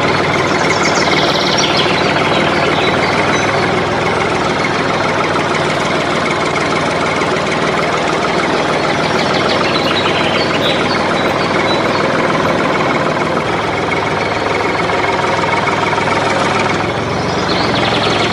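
Diesel tractor engine running steadily with a fast, even knocking beat. A few brief high chirps sound over it.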